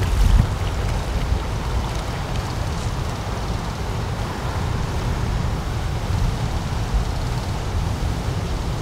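Wind buffeting the microphone: a steady low rumble under an even hiss, with a couple of stronger gusts right at the start.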